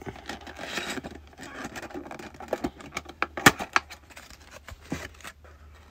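Clear plastic blister insert of a collector's card tin being handled and pried loose: crinkling with a run of clicks and snaps, the sharpest about three and a half seconds in.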